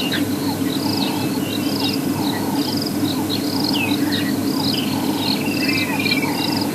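Outdoor chorus of insects and birds: short pulsed, cricket-like chirps repeating a little more than once a second, with scattered sweeping bird calls, over a steady low hum.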